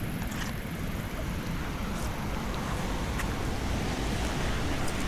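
Wind buffeting the microphone over a steady hiss of rain, with a few faint ticks.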